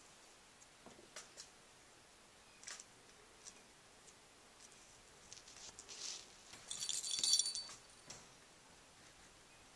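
A small plastic lattice cat ball being pushed by a pet rat, jingling and rattling briefly about two-thirds of the way in, with a few faint light clicks before it.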